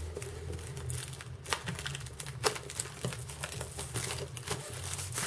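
Clear cellophane wrap being peeled and crinkled off a small cardboard box, with scattered crackles and a few sharper clicks.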